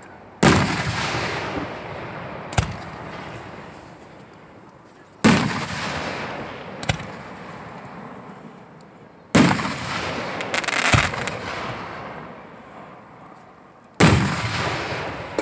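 Aerial fireworks bursting: four loud booms about four to five seconds apart, each trailing off in a long rolling echo, with single sharper pops in between.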